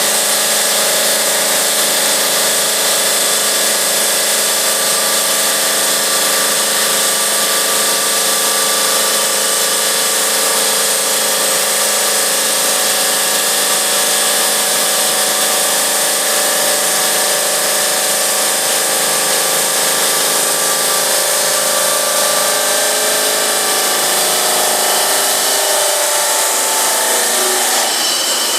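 GMM Brio Easy CNC bridge saw's diamond blade cutting 4 cm granite: a loud, steady whine and hiss with several held tones. Some of the tones waver in pitch near the end.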